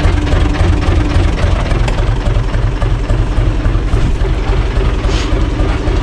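Universal U445 DT tractor's diesel engine idling steadily.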